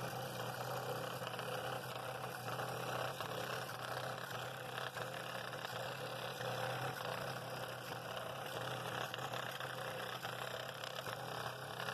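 Scroll saw running steadily, its blade cutting through a walnut blank along a pattern line, with a constant low motor hum under the cutting noise.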